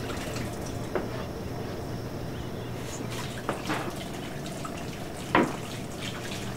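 A steady low room hum with a few light knocks and clinks, the loudest a little past five seconds in, as things are handled behind a bar counter.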